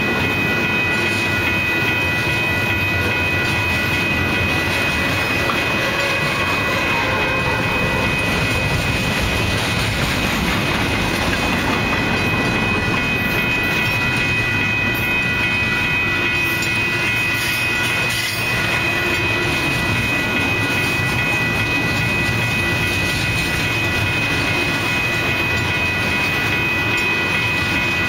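Union Pacific double-stack intermodal well cars rolling past: a steady loud rumble of steel wheels on the rails, with several steady high ringing tones held over it.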